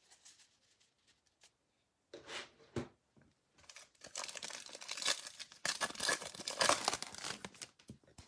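A Donruss football trading-card pack wrapper being torn open and crinkled, in a dense crackling burst that starts about four seconds in, with a couple of soft handling sounds before it.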